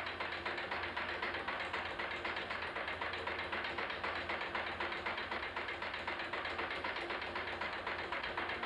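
Industrial sewing machine running, its needle stitching snakeskin with a rapid, even ticking over a steady motor hum.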